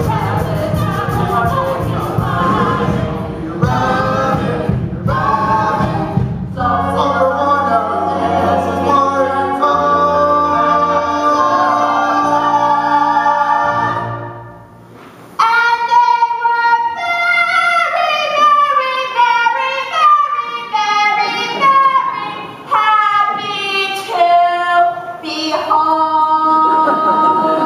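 Musical-theatre ensemble number: several cast voices singing over a small pit band. The music drops away briefly about halfway through, then the singing resumes with long held notes.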